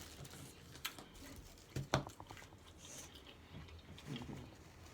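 A person chewing a mouthful of taco close to the microphone, with wet mouth sounds and a few sharp clicks and crunches. The loudest cluster comes about two seconds in.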